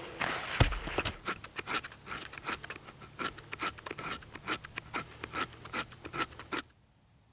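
A knife blade scraping fine wood shavings for tinder onto a piece of birch bark, in short repeated strokes about two to three a second, stopping suddenly near the end. A single thump comes about half a second in.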